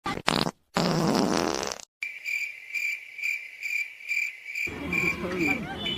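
A wet fart sound, buzzy and about a second long, cut off sharply. It is followed by a cricket chirping evenly at about four chirps a second. Background street noise and voices come in near the end.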